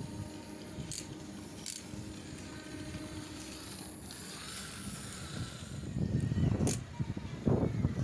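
Small plastic DC gear motors of a homemade remote-control tractor running as it drives over rough concrete, with two sharp clicks in the first two seconds and a louder, rougher rumble near the end.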